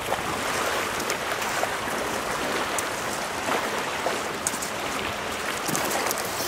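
Small waves lapping and splashing at the edge of a shallow bay: a steady wash of water, with a few sharper splashes in the second half.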